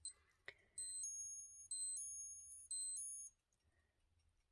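Two small button clicks on an Orient SJHFAE18CA quartz alarm chronograph, then its alarm buzzer sounds: a high electronic beeping that flips rapidly between two tones for about two and a half seconds, then stops.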